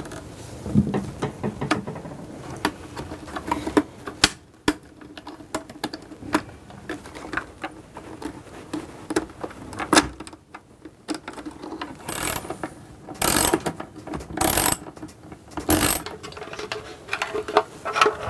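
Sharp plastic clicks and scrapes as rocker switches are prised out of a vacuum cleaner's plastic handle. About twelve seconds in come four short rasping bursts about a second apart: a socket ratchet working loose the bolts that hold the handle and motor cover to the cowl.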